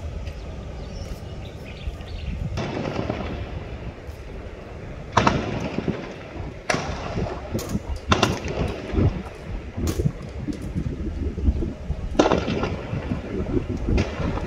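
Distant gunshots ringing out one at a time, about six or seven cracks a second or more apart, each trailing off in an echo, over a steady low rumble.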